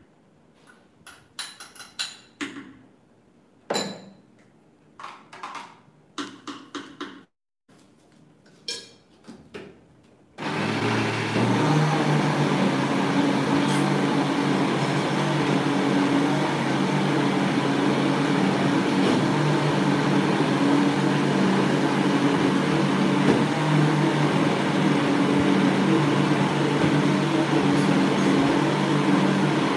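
Countertop blender starts about ten seconds in and runs steadily with a low motor hum, blending a jug of liquid pumpkin smoothie. Before it starts there are short knocks and clatter as the jug and lid are handled.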